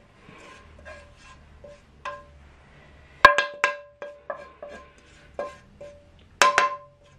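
Background music of short, light plucked notes, with two pairs of loud sharp knocks, about three seconds in and again about six and a half seconds in, from a serving spoon striking the dish.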